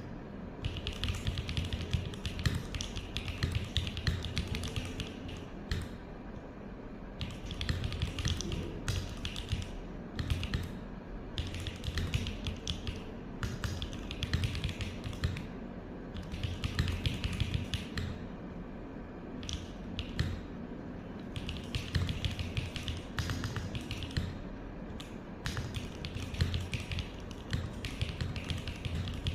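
Fast typing on a QK65 V2 mechanical keyboard with a POM plate and Gateron x Sillyworks Slay Type A switches: rapid key clacks in runs of a few seconds, broken by short pauses.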